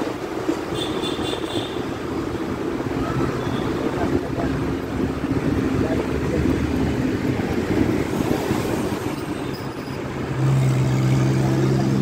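Inside a moving city bus: steady engine and road noise as it drives, the engine's low hum growing louder and stronger about ten seconds in.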